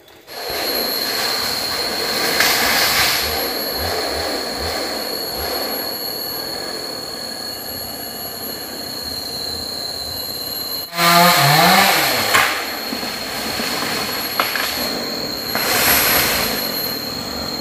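Forest insects, cicadas, buzzing steadily: a dense hiss with a thin high whine held throughout. About eleven seconds in there is a short break, followed by a briefly louder stretch.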